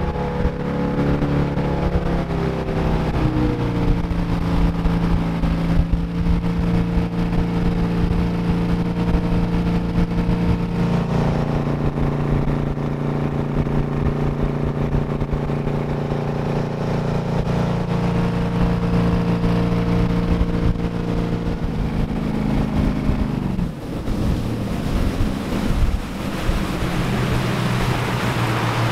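Vintage ski boat's Ford 302 V8 running hard under way, a steady engine note over rushing wind and water. The pitch eases down a few seconds in and lifts again about eleven seconds in. Around twenty-two seconds in the note falls away as the throttle comes back, and settles to a lower, steady run.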